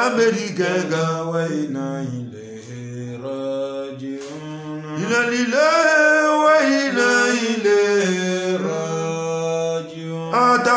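A male voice chanting a praise song in long held, wavering notes over a steady low drone. About five seconds in the voice comes back louder on a higher phrase.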